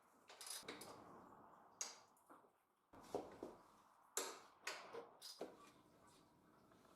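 A dozen or so light, irregular clicks and taps, some with a brief ring, in a small quiet room.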